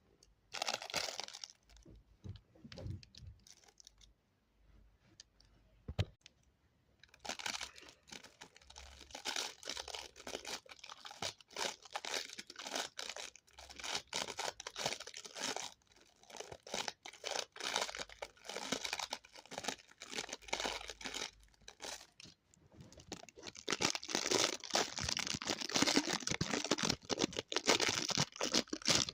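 Dense, irregular crinkling and crackling, like material being crumpled. A short burst comes at the start, then only faint sounds for a few seconds, then the crackle runs on steadily and grows louder for the last several seconds.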